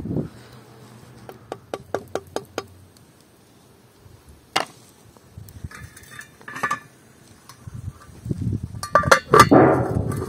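Metal pot, lid and wooden spoon clinking and knocking: a run of quick light ticks early on, a few single knocks, then a louder metallic clatter with a short ring as the lid is set down on the pot near the end.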